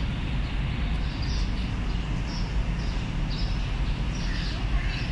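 Steady outdoor background noise with a low rumble, and short high bird chirps repeating every second or so.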